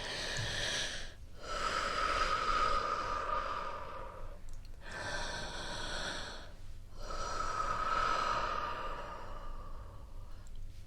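Slow, deep breaths close to the microphone: four long breaths, each lasting about one to three seconds, with short pauses between them.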